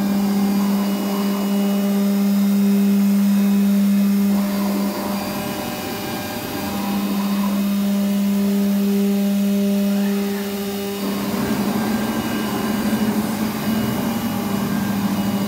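CNC router spindle (a 10 hp HSK spindle) running at 12,000 RPM with no load, a steady whine; the whine fades for a moment about five seconds in, then returns. After about eleven seconds the steady whine gives way to a rougher, noisier running sound as the gantry moves the head.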